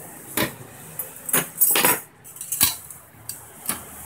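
Metal clinking and rattling from handling a sheet-metal edge guide and a small hand tool while fitting the guide to a handheld stone cutter: about half a dozen sharp clinks, with a longer rattle in the middle.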